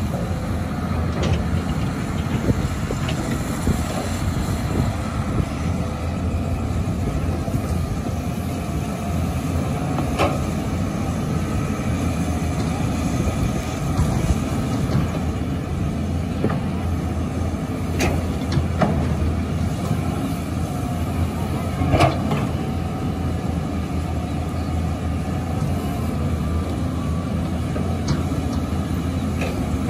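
Caterpillar 320C hydraulic excavator's diesel engine running steadily under load while it digs and swings, with a few short sharp knocks, the loudest about two-thirds of the way through.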